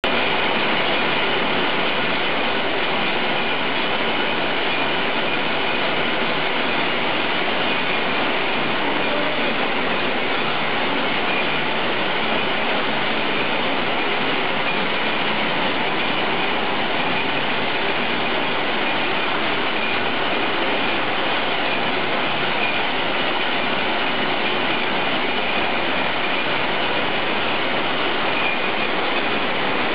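Power loom weaving a kora grass (sea grass) mat, running steadily with a continuous mechanical noise.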